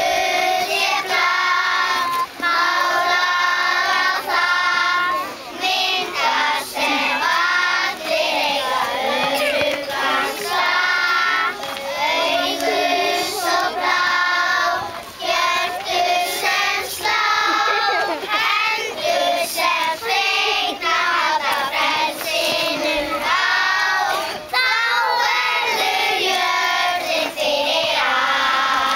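Choir of young children singing a song in Icelandic together, phrase after phrase with short breaths between.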